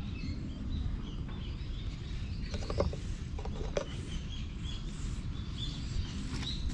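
Outdoor park ambience: small birds chirping now and then over a steady low rumble, with a few brief sharper sounds near the middle.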